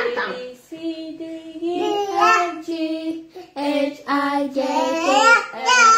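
A toddler singing a simple tune in short phrases of held notes.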